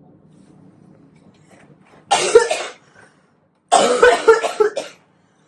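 A person coughing hard: one short cough about two seconds in, then a longer fit of several coughs.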